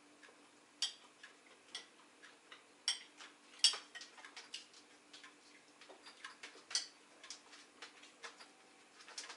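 A metal spoon tapping and scraping against a soup plate while soup is eaten, making irregular light clicks, sometimes several a second. A faint steady hum runs underneath.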